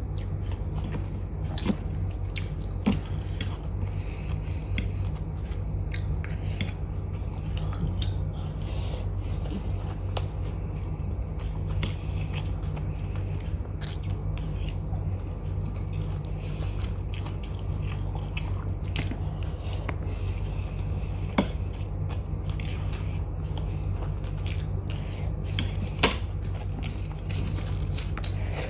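Close-miked chewing of Maggi instant noodles, with a steel fork clicking and scraping on a steel plate in many small sharp clicks. A few louder clicks come later on. A steady low hum runs underneath.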